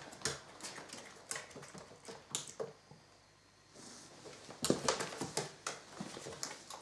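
A small dog's claws and paws tapping irregularly on a wooden floor and the plastic floor of a pet carrier as it walks in and back out. There is a short lull in the middle.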